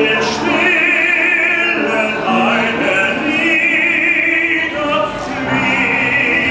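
Male opera singer singing light classical song in full operatic voice, holding notes with wide vibrato, with piano accompaniment.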